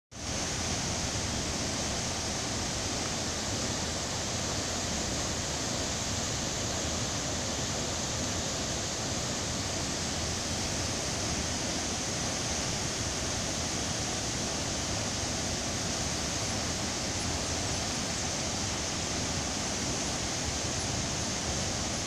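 Ouzoud Falls pouring down a cliff: a steady, unbroken rush of falling water.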